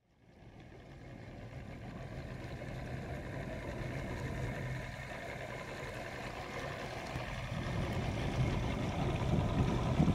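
Fishing boat's motor running steadily under wind and water noise, fading in at the start and growing somewhat louder toward the end.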